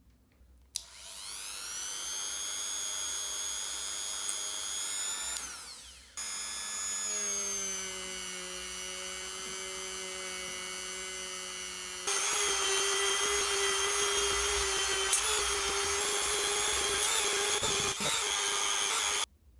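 Small handheld electric power tool motor whining. It spins up about a second in, runs steadily and winds down around five seconds. It then runs at a steadier, lower pitch, cuts to a louder and higher run about halfway through, and stops abruptly near the end.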